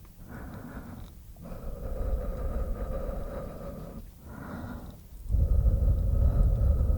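Close-miked mouth sounds: breathy, airy noises in a few stretches with short pauses between them, and a louder low rumble from about five seconds in.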